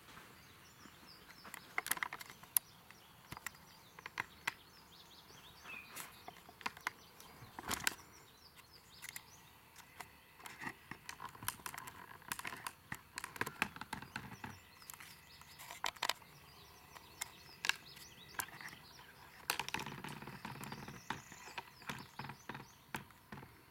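Faint ambient sound: scattered light clicks and ticks throughout, with a few short bird chirps, one rising chirp near the end.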